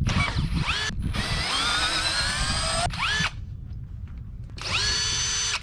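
Power drill-driver backing out the corner screws that join an aluminum window frame. It runs in about four bursts, the longest roughly two seconds with a whine that rises in pitch as the motor spins up.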